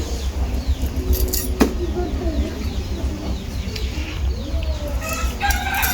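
Birds chirping, with short calls scattered through, over a steady low rumble. There is one sharp click about a second and a half in, and a higher pitched call near the end.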